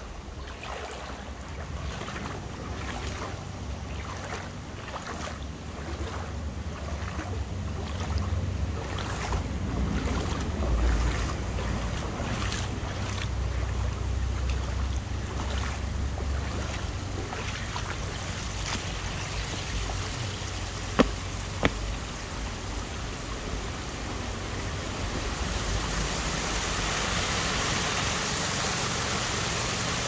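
Stream water rushing over a small stone weir, with wind buffeting the microphone as a low rumble. Two sharp clicks about two-thirds of the way through, and the rushing hiss grows louder near the end.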